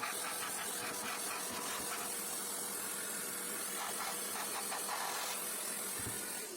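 Vacuum cleaner running steadily with a hiss and a faint steady hum, sucking leftover toner off a laser printer's developer-unit doctor blade; it cuts off at the very end.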